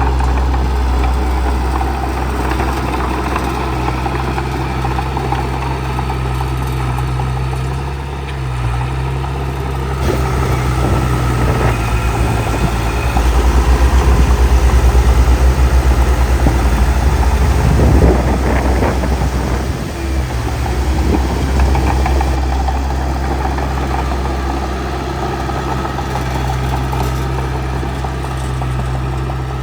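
Bulldozer's diesel engine running steadily, getting louder for several seconds around the middle as it works harder.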